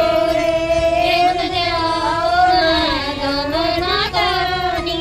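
A woman's voice singing a slow melody with long, drawn-out notes that bend gently in pitch.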